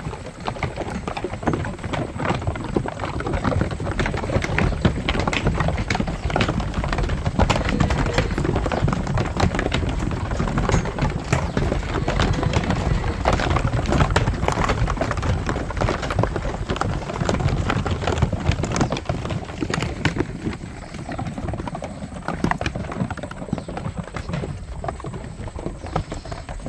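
Many sheep's hooves clattering and shuffling on the ground: a dense, continuous patter of small knocks, easing slightly near the end.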